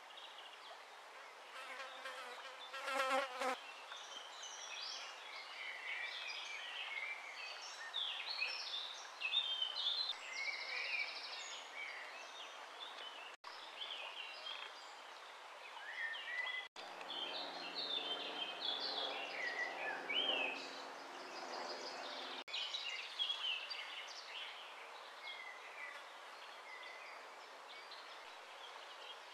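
Small birds chirping and singing over a steady faint hiss, with insects buzzing: a short pulsing buzz a few seconds in and a lower, longer hum past the middle.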